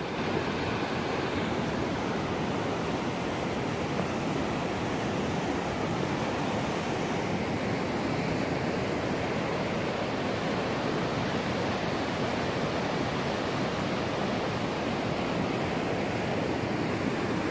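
River rapids rushing: a steady, unbroken roar of fast whitewater.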